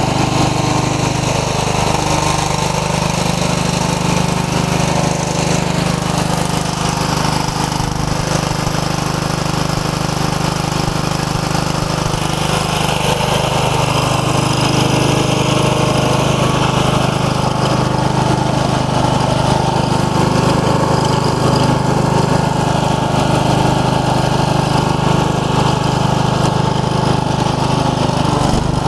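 15-horsepower OHV Briggs & Stratton engine of a Craftsman riding mower running steadily.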